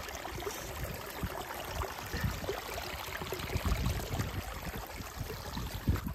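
Rainwater running and trickling along a shallow drainage channel dug in the soil, with irregular low rumbles underneath.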